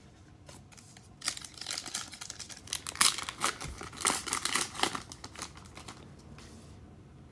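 Foil wrapper of a Panini Revolution basketball card pack being torn open and crinkled: dense crackling that starts about a second in, is loudest near the middle, and dies away about six seconds in.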